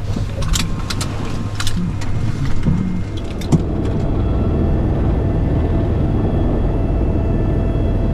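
Helicopter cabin noise: a steady low rumble with clicks and knocks over the first few seconds. After a sharp click about three and a half seconds in, the rumble grows louder and steady high whining tones join it.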